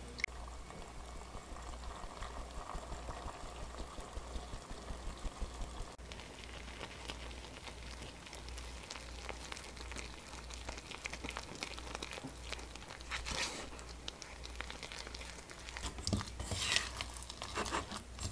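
Milk, water and butter bubbling in a nonstick saucepan while a silicone spatula stirs, a fizzy sound with fine ticks. From about six seconds in, the spatula scrapes and works through the thick flour paste of choux dough, with louder scrapes against the pan near the end.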